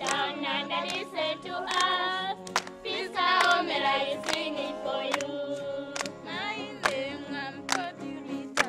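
A group of women and children singing together, with hand claps falling at regular intervals.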